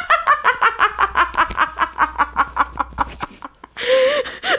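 A woman laughing hard in a fast, even run of short laughs, about six a second, for some three seconds. Near the end comes one short high vocal sound.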